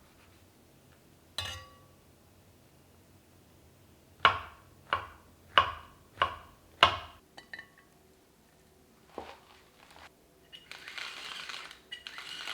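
Kitchen utensils knocking during cooking: a single click, then five sharp, ringing strikes at an even pace, a few lighter ticks, and a brief hiss near the end.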